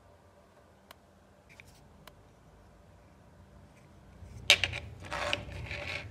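Handling noises: a few faint ticks, then about four and a half seconds in a sharp click followed by rustling and scraping as a plastic mains plug with its cable and a phone battery are picked up and handled on a tabletop.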